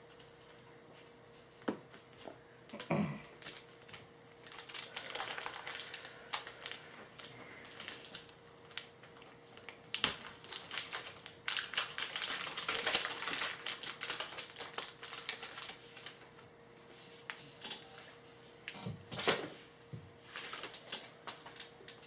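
Trading card packs and cards being handled: irregular rustling, crinkling and light clicks, busiest around the middle.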